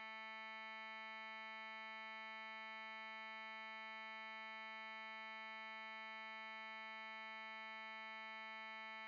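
Faint, steady, buzzy synthesized tone held at one pitch from a MeldaProduction oscillator plug-in. It is the additive (harmonics mode) resynthesis of a slice of an audio file picked in the sample analyzer, not the sample itself.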